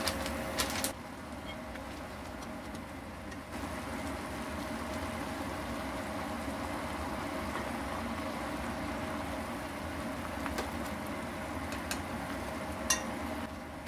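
Pot of instant noodles boiling on the stove: a steady bubbling hiss over a low hum, louder and crackly in the first second, with a few light clicks near the end.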